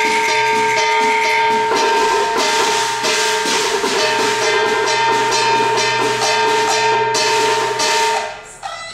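Cantonese opera ensemble music: a long held melodic note over repeated percussion strokes. It breaks off near the end.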